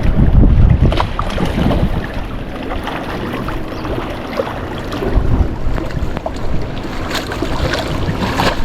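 Wind buffeting the microphone over the wash of ocean waves against rocks, with a few faint clicks.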